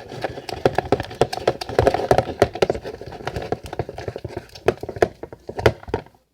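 Fluffy slime of white glue and shaving cream being stirred in a bowl with a mixing utensil: a fast, uneven run of sticky clicks and squishes that stops abruptly near the end.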